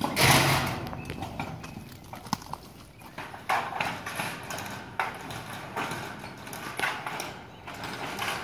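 A corrugated steel roofing sheet being pushed up and slid across a metal carport frame: a loud sheet-metal rattle at the start, then a run of knocks, clanks and scrapes as the panel is worked into place.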